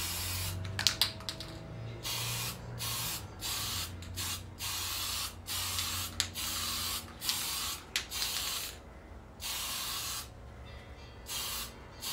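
Aerosol spray can of primer hissing in a series of short bursts, about a dozen, as a second primer coat is sprayed on.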